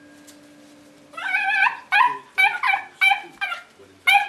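Puppy barking: one drawn-out high yelp about a second in, then a run of short high yaps, about three a second.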